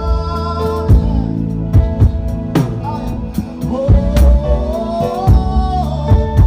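Live band playing a worship song: drum kit with bass drum hits about once a second, under sustained chords and a melody line that slides up in pitch near the middle.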